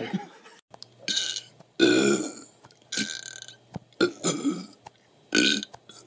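A man gagging on command: five short, loud retching croaks from the throat, about a second apart.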